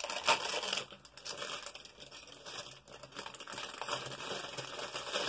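Crinkling and tearing of a small plastic LOL Surprise blind-bag wrapper as it is bitten and pulled open and then handled, an irregular scratchy rustle that is loudest in the first second.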